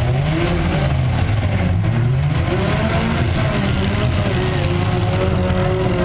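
Several demolition-derby car engines revving at once, their pitch rising and falling.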